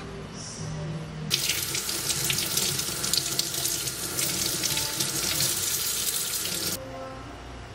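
Tap water running and splashing over a rubber ring held under the stream as it is rinsed. The water comes on about a second in and shuts off suddenly near the end.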